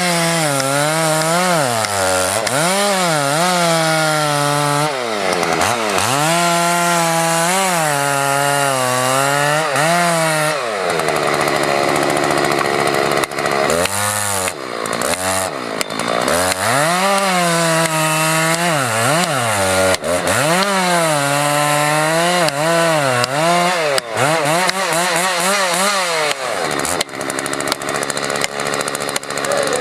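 Two-stroke chainsaw cutting wood, its engine speed rising and falling over and over as it bites and eases off, dropping back toward idle a few times before revving up again.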